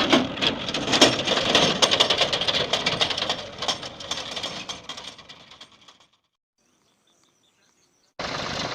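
Heavy farm machinery engine running with a rattling clatter. It fades out to silence about six seconds in, and steady engine noise cuts back in abruptly near the end.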